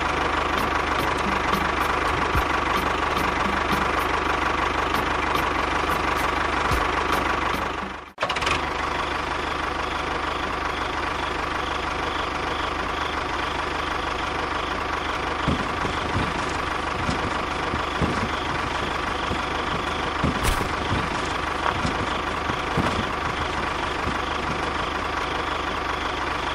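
Tractor engine running steadily at idle with a knocking beat. It cuts out briefly about eight seconds in and starts again.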